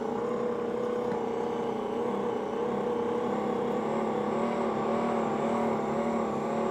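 Ankarsrum stand mixer running its meat grinder attachment, a steady motor hum whose pitch wobbles slowly up and down as brisket is fed through the grinder.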